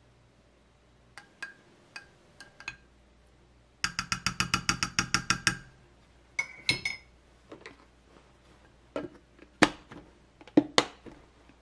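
A spoon clinking against a glass storage container of grated carrot salad, with a quick run of about a dozen even taps a few seconds in. Near the end come a few sharp, loud clicks as the container's lid is pressed on and snapped shut.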